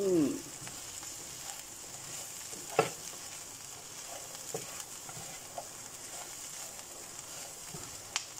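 Mixed vegetables sizzling in butter in a nonstick frying pan while a silicone spatula stirs and scrapes them, with a few light clicks of the spatula against the pan.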